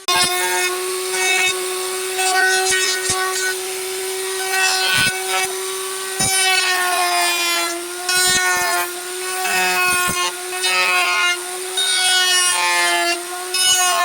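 Wood lathe running with a steady motor whine while a turning tool cuts the spinning wood, giving a shifting scraping noise with occasional clicks. The sound starts abruptly.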